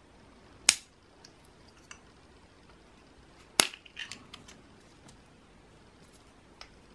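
Plastic cap and seal of a smoked jalapeño seasoning jar being opened: two sharp snaps about three seconds apart, the second followed by a few smaller clicks.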